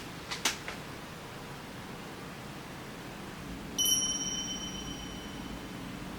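A few light clicks, then a single bright ding that rings out and fades over about a second and a half.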